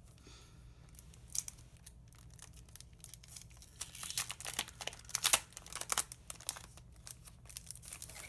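Clear plastic crinkling and crackling as a packet of papers is slid out of its plastic sleeve and a stiff printed acetate sheet is flexed by hand: a busy run of sharp crackles, loudest in the middle.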